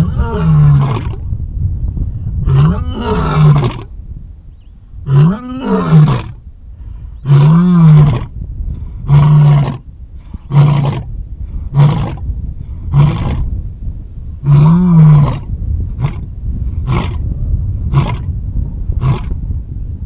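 Male lion roaring: a bout of several long, loud roars, followed by a series of shorter grunting roars about a second apart that grow briefer toward the end. The calls sound over a steady low rumble.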